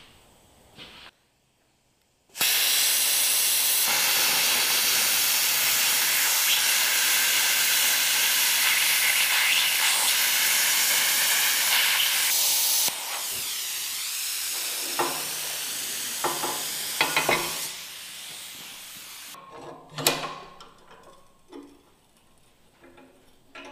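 Handheld plasma cutter cutting a steel bracket: a loud steady hiss starts a couple of seconds in and lasts about ten seconds, then drops to a quieter hiss of air for about five seconds after the cut. A few light metal clinks follow, and a single clank comes about twenty seconds in.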